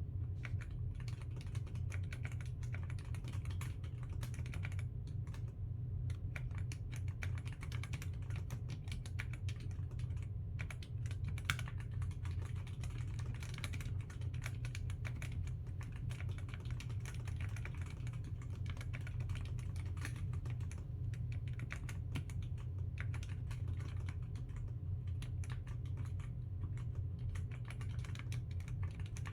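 Typing on a NocFree Lite wireless split mechanical keyboard: a steady, rapid run of key clicks over a low steady hum.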